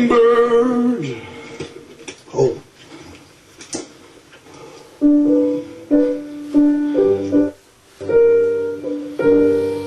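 A voice sounds briefly near the start. About halfway through, piano chords begin, struck in short groups with brief pauses between.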